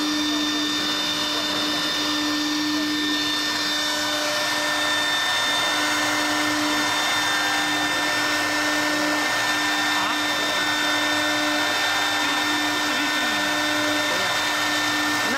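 CNC column-milling machine running steadily, its spindle motor keeping one constant whining pitch under an even hiss.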